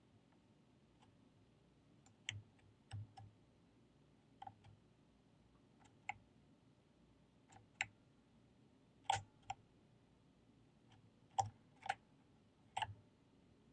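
Irregular clicking of computer input devices: about fifteen short clicks scattered through the stretch, many in quick pairs a fraction of a second apart, over faint room hiss.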